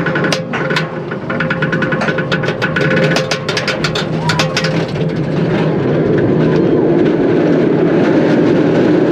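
Bolliger & Mabillard steel roller coaster train cresting its lift hill, with rapid clicking and clanking from the lift chain and track. About five seconds in, the clicking gives way to a rising rumble of wheels and rushing wind as the train starts down the first drop.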